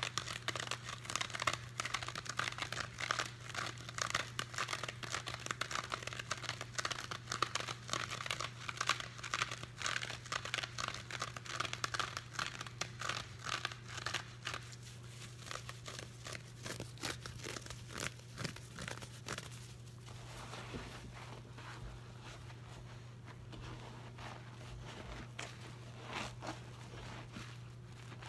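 Wet blue cellulose sponge being torn apart by hand: a dense crackling and crunching of the fibres, which thins out and goes quieter about halfway through.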